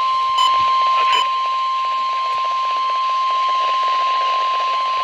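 NOAA Weather Radio 1050 Hz warning alarm tone sounding as one steady, unbroken high tone through weather radio receivers, the signal that a warning message is about to follow. Two short higher beeps come in the first second and a half, over a hiss of radio static.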